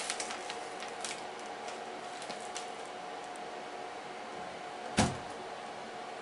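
Plastic vacuum bag crinkling and rustling as it is laid across the sealing bar of an Allpax vacuum sealer, then the sealer's lid shuts with a single thud about five seconds in.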